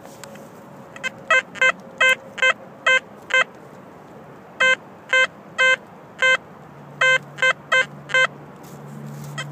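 XP Deus metal detector's audio beeping repeatedly on a good target as the coil is swept back and forth: about fifteen short, clear beeps of one pitch in three runs. The target reads in the high 30s to low 40s and turns out to be a buried button.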